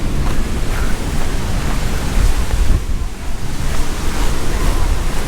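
Storm wind from a hurricane buffeting the microphone in gusts, with heavy surf breaking on the beach underneath.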